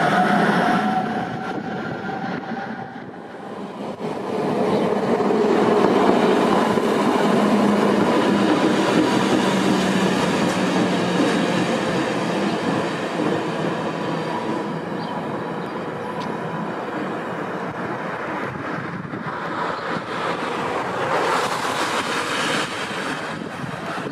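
Trams running on street track. A departing tram fades over the first few seconds, then a two-car tram rolls past with rumbling, clattering wheels and a steady motor whine. The sound slowly dies away as another tram comes closer.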